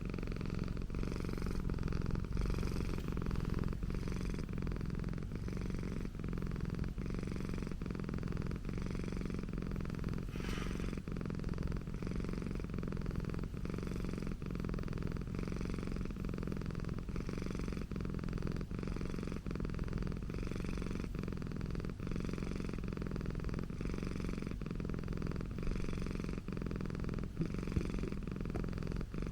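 Persian cat purring steadily and continuously.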